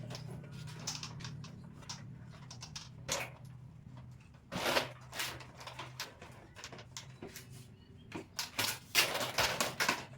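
Irregular clicks and knocks of shoe rack parts being handled and fitted together, with a louder clatter about halfway through and a quicker run of knocks near the end.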